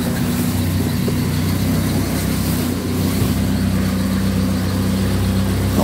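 The 1985 Mercedes 230 TE's 2.3-litre four-cylinder petrol engine idling steadily.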